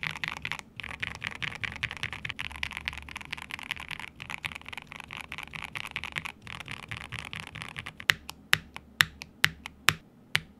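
Fast typing on a KBD67 Lite R3 mechanical keyboard fitted with lubed linear switches, first Tecsee Carrots, which sound deeper, then the clackier C3 Tangerines. About eight seconds in the typing stops and gives way to a run of separate sharp clicks, about three a second.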